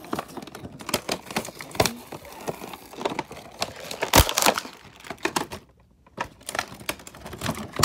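Stiff clear plastic blister packaging of a toy set being handled and pulled open, crinkling and crackling with many sharp clicks and snaps. The loudest snap comes about four seconds in, with a brief pause shortly after.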